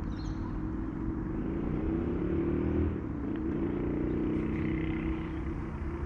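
A motor engine running, its pitch rising and falling, loudest around two to three seconds in.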